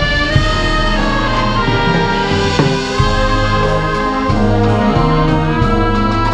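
Brass band playing a slow arranged piece: sustained brass melody and chords over a bass line, with percussion strokes keeping the beat in the second half.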